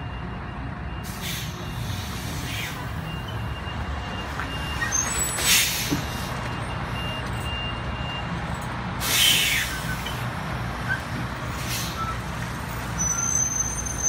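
Semi-truck of a poultry live-haul rig with a steady low engine rumble, broken by short hisses of released air, the loudest about five and a half and nine seconds in.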